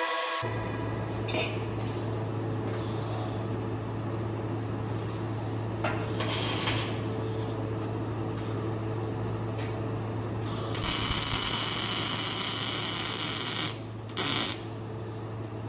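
A power tool running steadily with a constant low hum; from about 11 to 14 seconds in it gets louder with a hissing edge, then drops back near the end.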